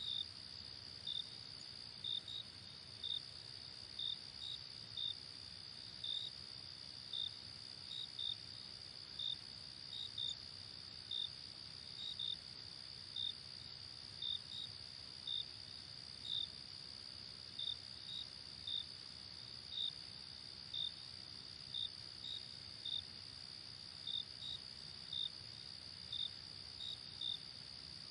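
Night insects: an unbroken high trill, with short cricket chirps about once a second, sometimes in quick pairs, standing out above it.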